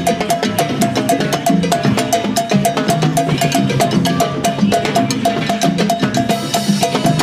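Timbales and mounted cowbells struck with sticks in a fast, steady salsa rhythm, dense with quick strokes.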